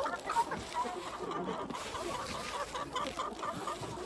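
Chickens clucking: a flock's short, overlapping calls.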